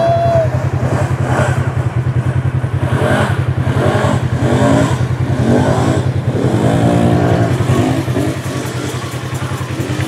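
Four-wheeler (ATV) engine running hard and revving up and down repeatedly as it is ridden through shallow water, with water splashing.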